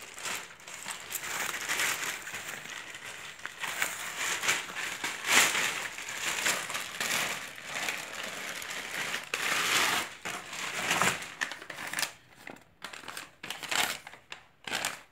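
Plastic and foam packing wrap crinkling and rustling as it is handled and pulled away from an air rifle in a cardboard box; the rustling thins out after about 11 seconds into a few light taps and scrapes.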